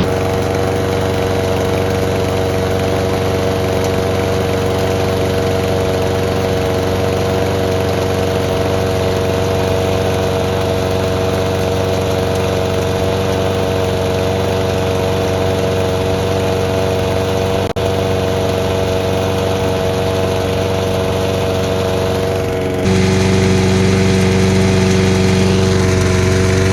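Small gasoline engine running steadily at a constant speed. About 23 seconds in the sound steps up, a little louder with a stronger low note, and there is a single click shortly before that.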